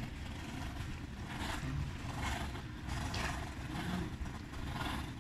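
Motorboat engine running steadily at low speed, a continuous low rumble, with a hiss above it that swells and fades about once a second.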